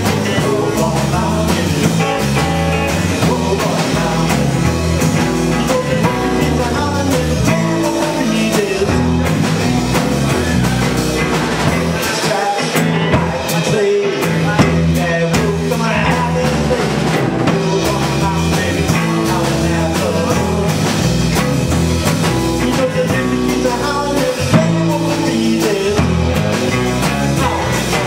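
Live rock band playing: electric guitar, bass guitar and drum kit, with a man singing.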